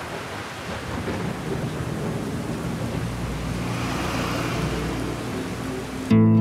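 Steady rain with a low thunder rumble that builds and swells about two-thirds of the way through. Acoustic guitar music starts suddenly just before the end.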